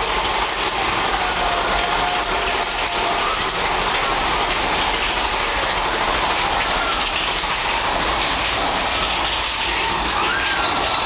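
Big Thunder Mountain Railroad mine-train roller coaster running along its track, heard from on board: a steady rattling, clacking ride noise.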